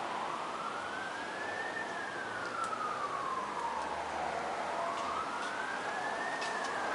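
Emergency vehicle siren wailing, its pitch rising and falling slowly about every four to five seconds, over a steady background hiss with a few faint clicks.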